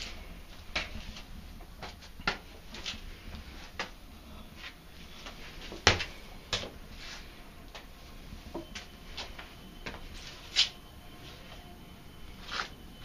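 Scattered light knocks and clicks at irregular intervals, with a sharper knock about six seconds in and another near eleven seconds.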